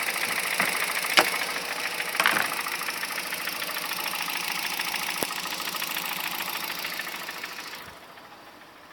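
Honda Civic Hybrid 1.3 IMA petrol engine running with a fast knocking clatter whose cause is unknown (camshaft, valves, bearings, timing chain or piston slap are suspected). A few sharper clicks stand out, and the sound cuts off abruptly near the end.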